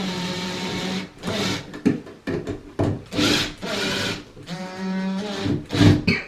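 Power drill driving screws, its motor running in several short runs that start and stop.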